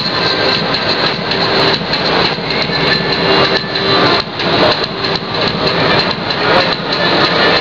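Loud oro folk-dance music played for a line of dancers, with sharp knocks of their feet stamping on the wooden floor coming through it.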